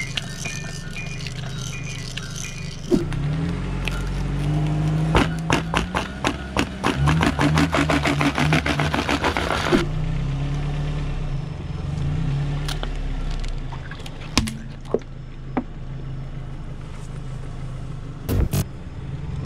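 Car tyre rolling over plastic objects and crushing them: a long run of sharp cracks and crunches, then a few single pops, over the car's engine idling.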